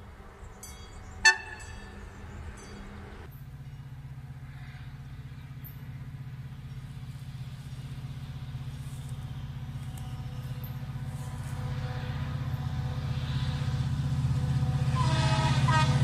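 A short, sharp horn toot about a second in. Then an approaching diesel locomotive's engine runs with a steady low hum that grows gradually louder, and its horn starts sounding near the end.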